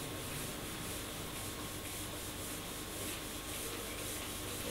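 Whiteboard eraser wiping marker writing off a whiteboard, rubbing in quick, even back-and-forth strokes.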